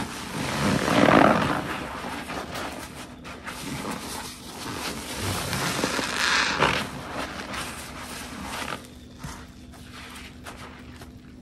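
Sponge soaked with soapy detergent squelching as it is squeezed by hand. Two louder squeezes come about a second in and around six and a half seconds in, and it is quieter near the end.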